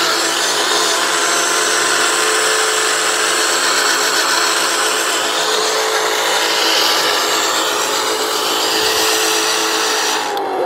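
Electric RC car motor whining at full throttle as the car does a burnout, its tyres spinning against the ground with a steady, loud scrubbing hiss. Right at the end the motor winds down with a falling tone.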